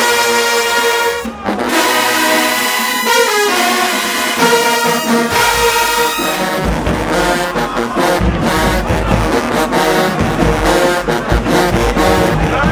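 Marching band brass section playing loud held chords of trombones and trumpets; about five seconds in, the bass drums and low brass come in with a driving beat under them.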